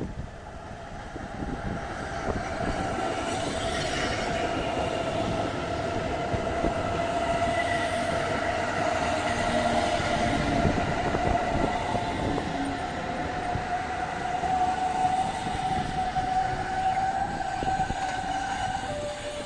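Hamburg S-Bahn class 474 electric multiple unit running past along the platform: wheels rumbling on the rails under a steady whine that holds one pitch. It grows louder over the first couple of seconds, and the whine drops slightly in pitch near the end.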